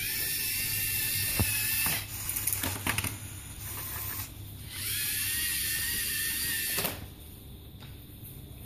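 LEGO Mindstorms EV3 robot's motors and gears whining as it drives, in two stretches of about two seconds each. Between them come a few clicks and knocks from the robot's attachment.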